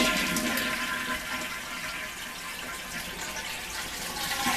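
Toilet flushing: a rush of water into the bowl, loudest at first, easing into a steady run of water as the tank begins refilling through the sink-top spout of a SinkPositive tank-lid sink, with a faint valve hiss.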